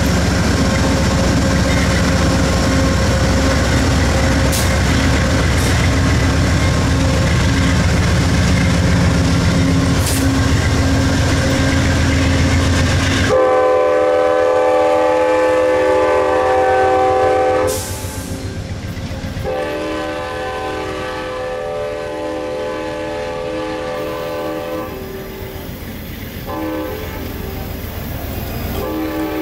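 A diesel locomotive engine runs loudly. About halfway through, a multi-chime locomotive air horn takes over, sounding in several long blasts with short breaks between them.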